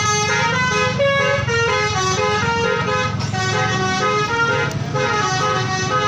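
Basuri telolet bus horn playing a fast tune of short, quickly changing notes, over the low rumble of the bus engine running.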